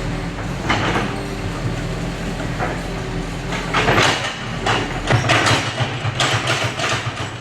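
Bulldozer's diesel engine running steadily under load, with irregular clattering bursts over it.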